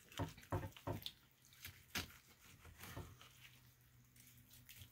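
A knife and gloved hands working on a juicy roast prime rib: a handful of short wet squishes and sharp clicks in the first three seconds, fainter after.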